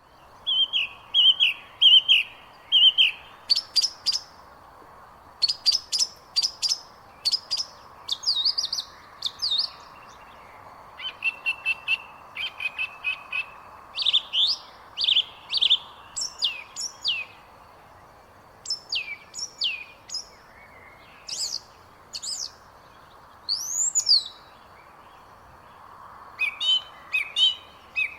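Birds chirping: short runs of quick, high chirps and gliding whistled notes, broken by brief pauses, over a faint steady background hiss.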